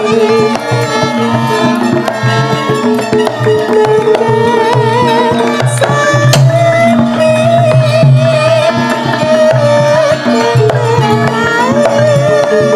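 Javanese gamelan ensemble playing a langgam: kendang hand drums keep a steady beat under a wavering high melody line.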